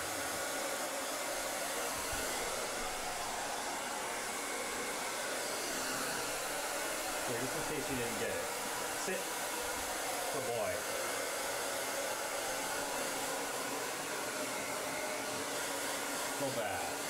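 Handheld hair dryer running steadily, blowing air over a wet dog's coat.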